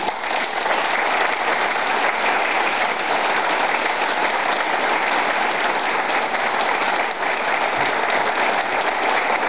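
Audience applause: many hands clapping in a steady, dense patter.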